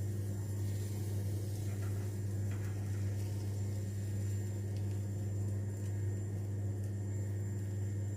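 A steady low hum at an even level, with no distinct events over it.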